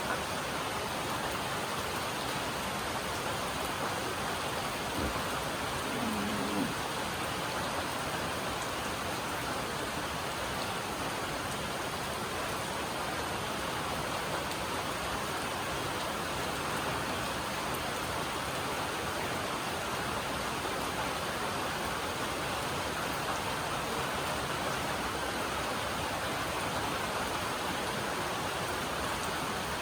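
Steady rain falling on a metal roof, an even, continuous patter of many drops.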